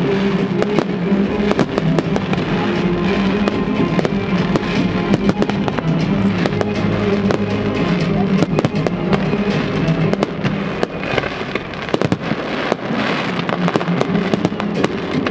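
Aerial firework shells bursting and crackling one after another, many sharp bangs and pops through the whole stretch, over loud music.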